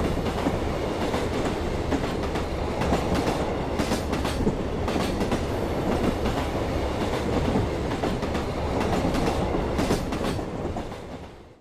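Passenger train running on the rails: a steady rumble with the clack of wheels over rail joints now and then, fading out near the end.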